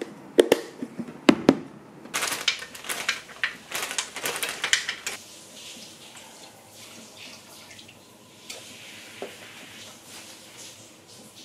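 A few sharp knocks and a quick run of clattering as frozen banana and blueberries go into a plastic blender jar, then milk poured steadily into the jar over the fruit for the rest of the time.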